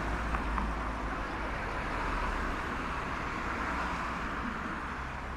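Cars passing close by on a city street, a steady rush of tyre and engine noise that swells about two to four seconds in as a car goes by.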